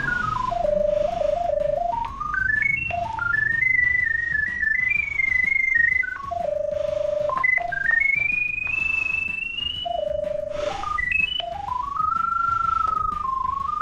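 Pipe locator receiver's electronic tone, a single pure pitch that steps up and down as the signal from the drain camera's sonde grows stronger and weaker.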